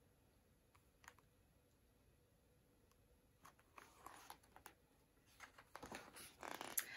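Near silence, then a soft, growing rustle of a picture book's paper pages being handled and turned near the end.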